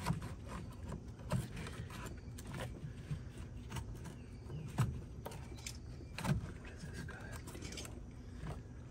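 Plastic coolant expansion tank being handled and worked into its clip mount: light scraping and a few short plastic knocks, the loudest about five and six seconds in.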